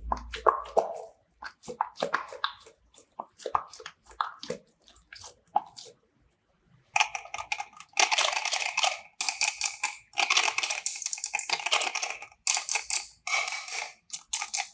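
Slime squishing: a run of short sharp wet clicks and pops, then, after a brief pause about seven seconds in, denser crackling squishes in longer runs.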